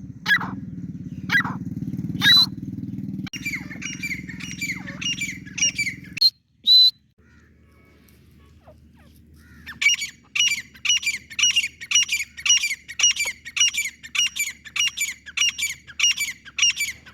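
Grey francolin (teetar) calls: loud repeated call notes over a low steady hum, which cuts off about six seconds in. After a short pause comes a fast run of short, high, evenly repeated notes, about three a second.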